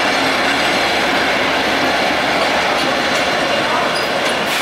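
EMD G12 diesel-electric locomotive passing close by at low speed: the diesel engine running steadily with wheels rolling on the rails, and a few brief high squeaks from the wheels near the end.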